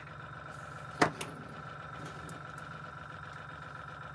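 Airbrush air compressor running with a steady hum and a thin steady whine. A sharp click comes about a second in, with a smaller one just after, as an airbrush and its hose are handled on the work mat.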